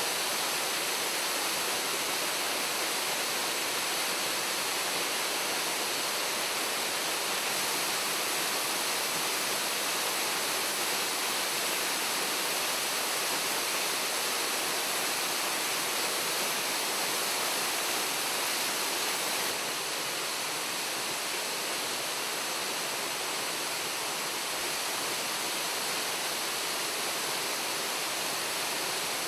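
Waterfall: a steady, even rush of falling water, slightly quieter after about twenty seconds.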